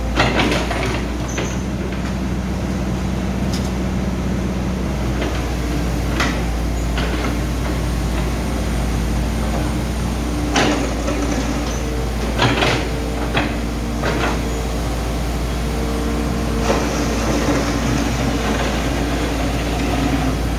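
Hitachi 110 hydraulic excavator's diesel engine running steadily, with a number of sharp metallic clanks and knocks scattered through.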